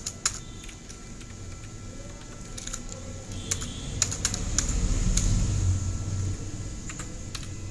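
Computer keyboard keystrokes: scattered single key clicks, with a short run of quicker taps about four seconds in. A low rumble underneath swells around the middle and is the loudest sound there.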